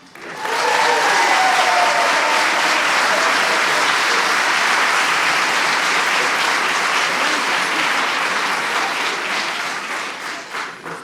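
Audience applauding after a choir song, steady clapping that tapers off near the end, with a falling cheer about a second in.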